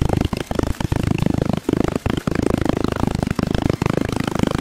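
Wooden rammer pounding moulding sand into a wooden casting flask: a fast run of repeated dull thuds, about four or five a second, as the sand is packed for a mould.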